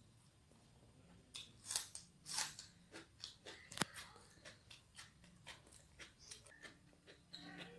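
Close-up chewing of crunchy food: a run of crisp crunches a few times a second, starting about a second and a half in, with one sharp click near the middle.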